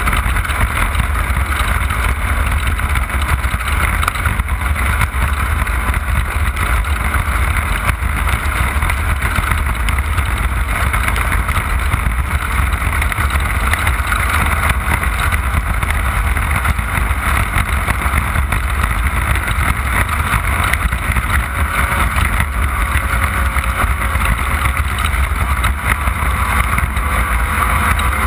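Off-road race car running flat out, heard from on board: a loud, steady engine drone over a heavy low rumble, with no let-up.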